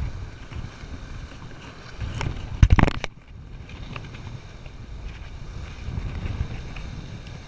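Wind buffeting the microphone over the wash of surf against the rocks of a jetty. About two and a half seconds in there is a short, loud burst of rustling knocks.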